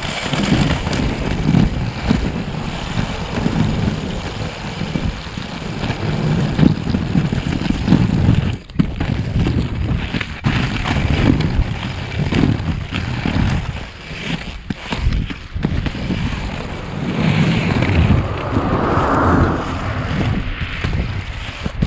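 Wind buffeting the microphone over the rolling rumble of inline skate wheels (Revolver 80mm urethane) on rough asphalt, rising and falling with each stride.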